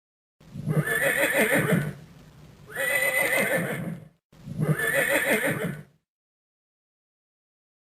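Horse whinnying three times, each a loud, quavering call of about a second and a half.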